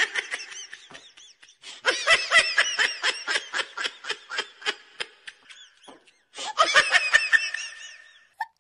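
Laughter sound effect: high-pitched giggling in quick, even pulses, coming in three bouts with short gaps between them.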